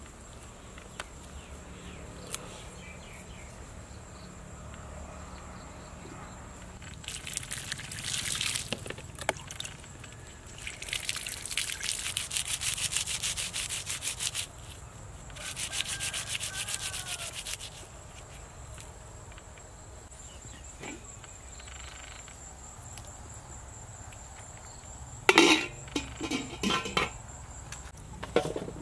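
Hands rubbing and scraping green plant material, in three bursts of dry rasping. Near the end, a few sharp splashes of water in a steel basin.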